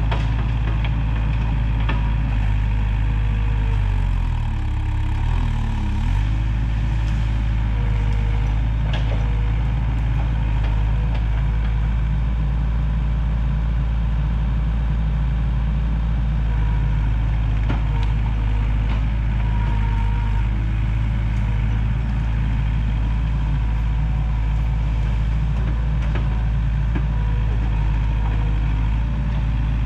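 Takeuchi TL130 tracked skid steer's diesel engine running steadily while it works, its note dipping briefly about five seconds in as if under load, with a few sharp clicks now and then.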